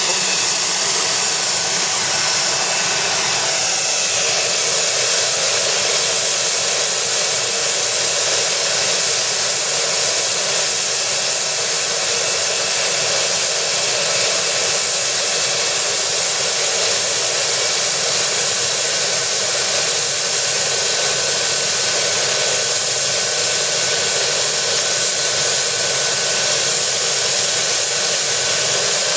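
MD 902 Explorer air ambulance helicopter running on the ground before take-off: a loud, steady turbine whine over the rushing noise of the turning rotor.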